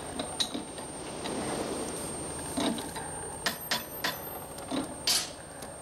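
Metal clanks and knocks of tools working on a paddle-steamer compound steam engine's seized, overheated connecting rod. There are about seven irregular strikes over a steady background noise.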